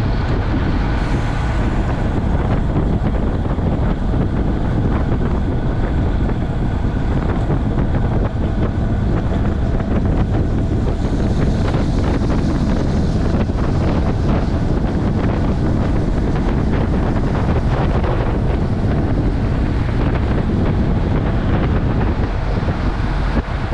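Steady wind rushing over the microphone of a camera on a road bike riding fast downhill.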